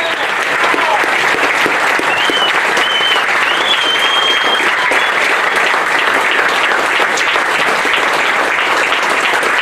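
Crowd applauding steadily in recognition of Vietnam War veterans, with a few high whistles about two to four seconds in.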